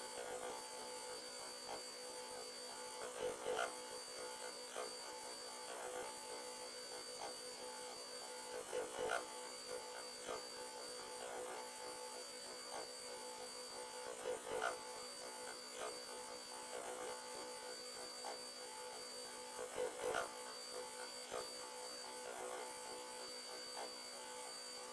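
3D printer running a print: its stepper motors hum and buzz steadily, with a high tone cutting in and out and a short louder burst about every five or six seconds.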